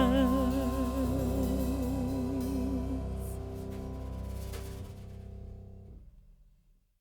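Background music with a singing voice holding a wavering note, fading out steadily and ending about six and a half seconds in.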